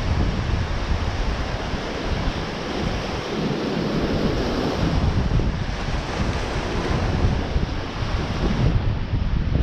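Rough surf breaking and washing over a boulder shoreline, with wind buffeting the microphone.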